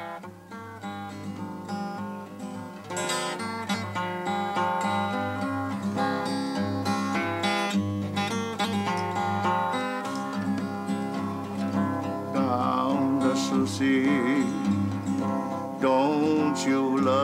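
Acoustic guitar played, a run of plucked melody notes over repeated bass notes.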